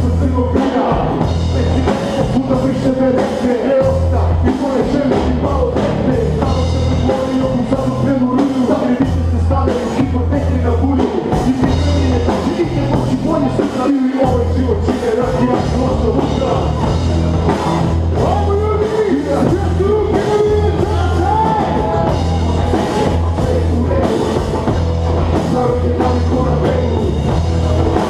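Rap-rock band playing live: drum kit and bass guitar keeping a steady pulsing groove, with vocals over the microphone.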